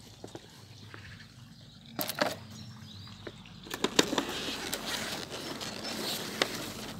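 Plastic plant sleeves and foam packing peanuts rustling and crinkling as they are handled in a cardboard box: a few sharp clicks at first, then busier and louder from about halfway through.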